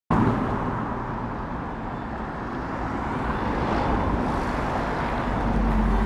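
Steady outdoor rumble and hiss of road traffic, swelling slightly near the end.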